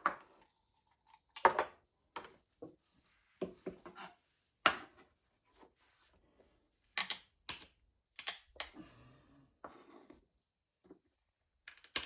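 A dozen or so sharp knocks and clinks at irregular intervals, hard objects being handled and set down.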